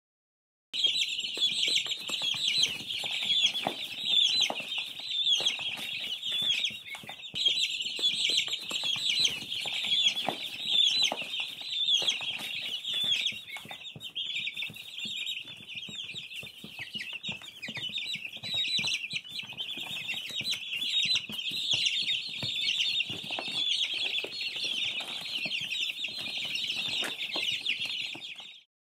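A crowd of baby chicks peeping continuously, many short high cheeps overlapping in a dense chorus.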